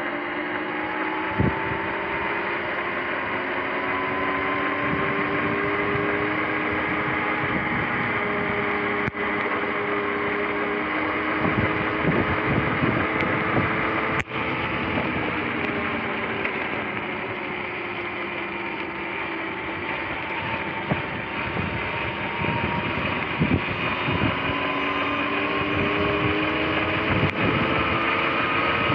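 Sur-Ron X electric dirt bike riding on a wet road: the motor and drivetrain whine climbs and falls in pitch with speed, over a steady hiss of tyres on wet tarmac and wind on the microphone.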